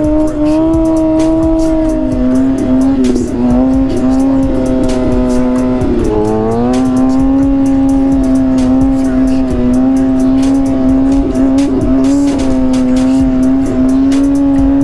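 Kawasaki 636 inline-four sportbike engine heard on board at a steady cruise, a high, even engine note. Its pitch dips about two seconds in and climbs again a few seconds later as the throttle changes.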